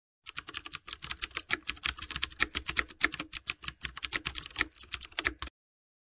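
Keyboard typing sound effect: a rapid, uneven run of key clicks that stops suddenly near the end.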